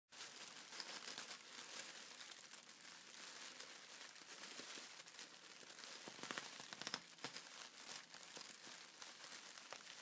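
Inflatable air-pillow packaging being handled, its thin plastic film crinkling continuously with many small crackles.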